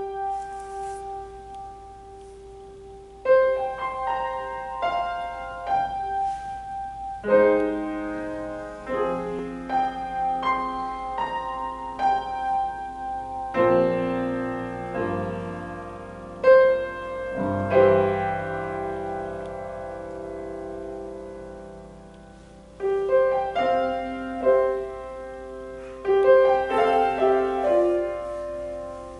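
Piano playing a slow instrumental passage of single notes and chords that ring out and fade.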